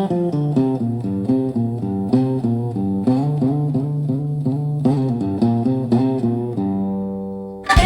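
Instrumental break in a slow blues song: quick plucked guitar notes over a bass line, settling on a held chord that fades away near the end.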